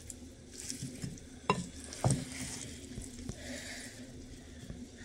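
A spatula turning chunks of goat meat in a thick oily paste in a glass bowl: soft wet squelching and scraping, with two sharp clicks about a second and a half and two seconds in.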